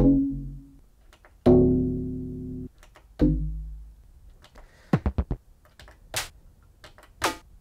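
Short chopped drum samples played back one after another from a Roland MC-909 groovebox as its sample list is stepped through: a few pitched, bassy hits, one held for about a second and cut off suddenly, then a quick run of clicks and two sharp ticks.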